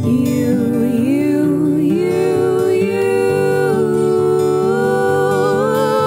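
Background music: a gentle song with long held, slightly wavering notes over a steady accompaniment.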